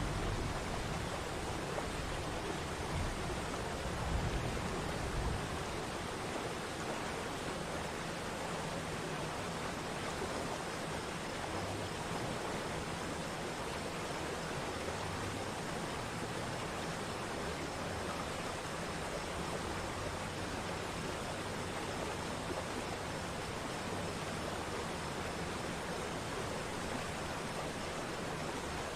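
Waterfall's rushing water, a steady even rush with a heavier low rumble for the first five seconds or so.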